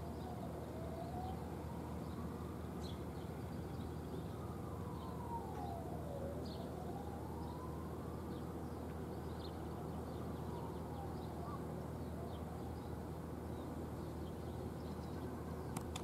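Faint emergency-vehicle siren wailing, slowly rising and falling in pitch, over a steady low hum of city traffic, with short high bird chirps scattered throughout.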